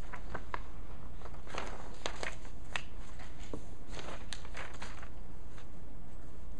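Scattered small clicks, taps and rustles over a steady low room hum.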